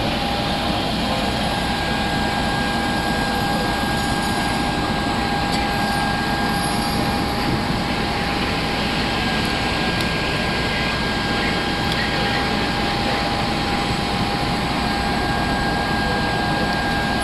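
Steady drone of fire trucks' diesel engines running at the scene, with a thin, steady high whine over it.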